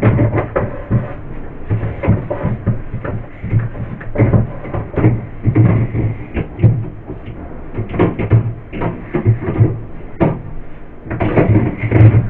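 Irregular knocks and clatters, with rubbing in between, from fridge shelves and items being handled and wiped.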